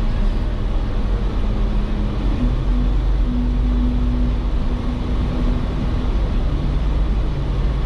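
Jeep Wrangler engine running steadily while driving off-road, with a low rumble under a steady engine drone. The engine note drops about six and a half seconds in.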